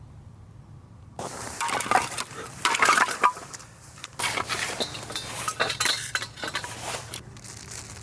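Hard objects clinking and clattering as they are handled, in quick irregular knocks, starting about a second in.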